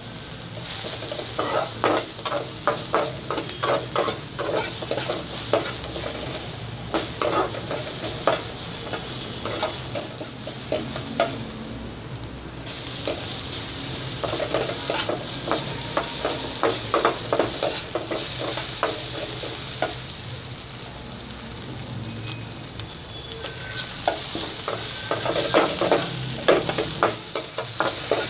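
Vegetables and rice stir-frying in a wok: a steady sizzle, with spells of a metal utensil scraping and clacking against the pan. Between the spells are quieter stretches of plain sizzling.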